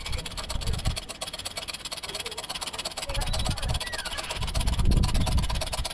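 Shop press working as its ram comes down onto a socket to push a rubber bushing out of a coilover: a fast, even mechanical clatter throughout, with heavier low thumps near the start, about three seconds in and again about five seconds in.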